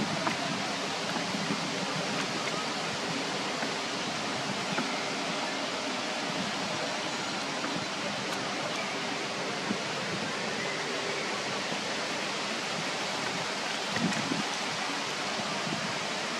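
A steady, even rushing hiss of outdoor background noise, with a few faint short knocks now and then.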